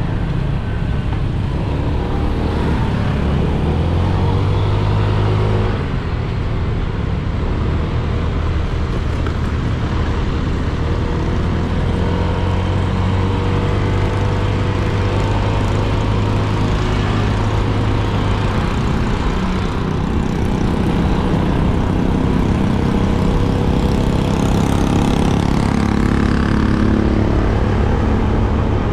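Motorcycle engine running while riding, with steady wind and road noise. The engine note holds level through the middle stretch, then rises and falls a few times in the later part.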